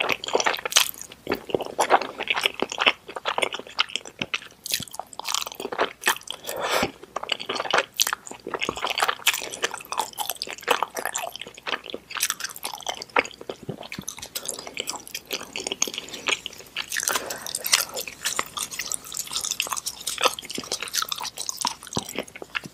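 Close-miked eating of saucy stir-fried udon and instant noodles: wet chewing and slurping, with quick irregular mouth smacks and squishes.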